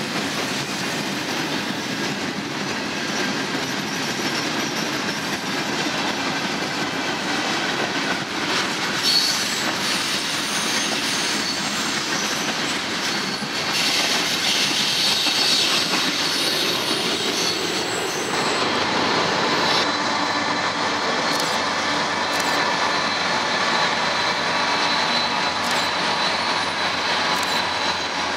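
Freight train of tank cars rolling past: a steady rumble of steel wheels on rail, with clatter and high-pitched wheel squeal now and then. About two-thirds of the way through, the sound changes to another freight train rolling by, a little farther off.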